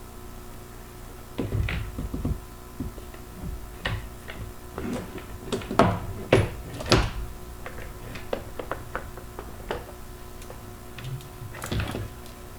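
Irregular clicks and knocks from a revolver being handled, with a few louder knocks about six to seven seconds in and another cluster near the end.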